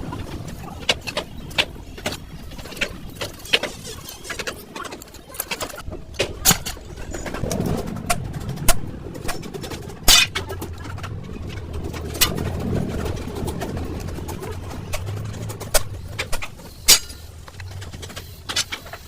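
Irregular sharp metal knocks and clicks from work on a truck's leaf spring, over a low rumble, with pigeons cooing.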